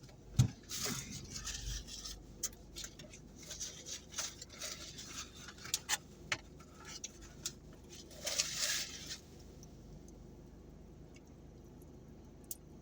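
Close-up chewing and mouth sounds: wet smacks and clicks of someone chewing tough, fatty teriyaki chicken, dying down about nine seconds in.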